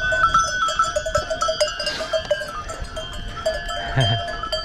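Bells on a herd of goats clanking and ringing irregularly, several bells of different pitch at once.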